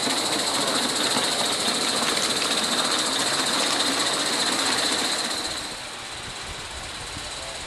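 45 mm gauge live steam model locomotive running under steam with a steady hiss. The sound drops noticeably about five and a half seconds in.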